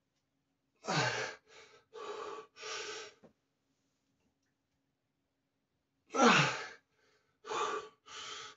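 A man grunting with effort during heavy barbell back squats, his voice dropping in pitch, followed by a few quick, hard breaths. The grunt and panting come twice, about a second in and again about six seconds in.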